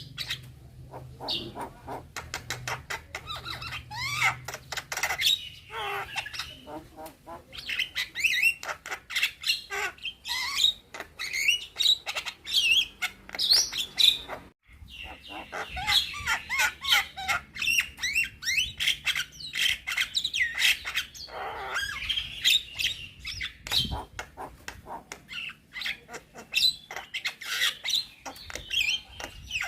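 Young Javan myna (jalak kebo) singing a long, rapid, varied song of whistled notes, chattering clicks and harsh squawks, with one short pause about halfway through.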